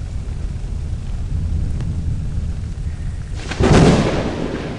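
Thunderstorm: a low rumble of thunder over rain, then a sharp thunderclap about three and a half seconds in that fades away over about a second.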